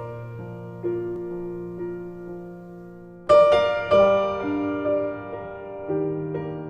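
Background music: slow, gentle piano chords, each struck and left to ring, with a louder chord about halfway through.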